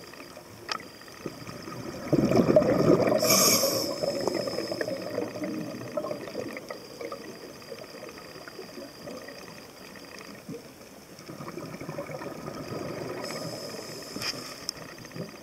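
Underwater sound of a diver's exhaled air bubbles burbling. There is a loud burst about two seconds in and a softer, longer one near the end, each with a brief high hiss.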